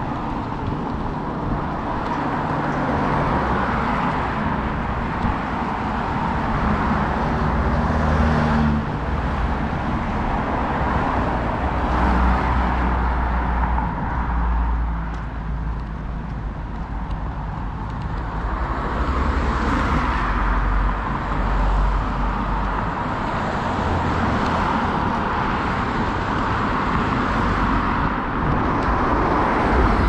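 Road traffic on a city street: cars passing one after another, their tyre and engine noise swelling and fading several times, with a low rumble through the middle.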